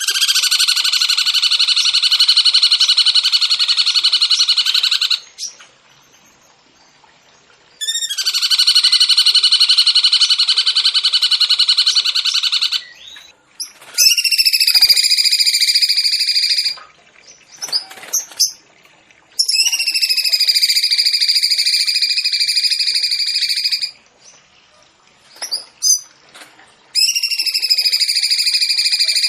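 Songbird song in long, fast rolling trills of about three to five seconds each, five of them with short gaps between; the first two are a finer, buzzing trill, the last three a harsher, ringing rattle.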